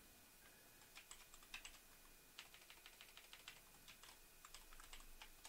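Faint typing on a computer keyboard: a run of irregular keystrokes starting about half a second in.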